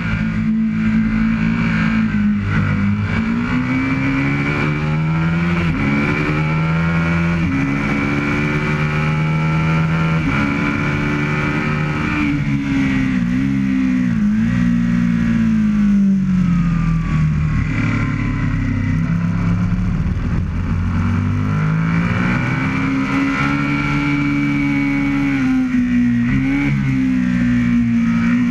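Aprilia RSV Mille's 998 cc V-twin heard from onboard at racing speed: the revs climb hard through the gears, dip at each upshift, and fall away under braking and downshifts into the corners, several times over.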